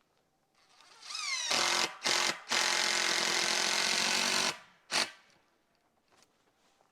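A power tool's motor whines up in pitch, then runs loud and steady for about three seconds with one brief break, and stops sharply; a single sharp click follows about a second later.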